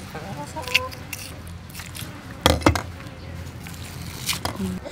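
Kitchen scissors snipping through a large fish's belly, two sharp cuts about two and a half seconds in, with chickens clucking in the background.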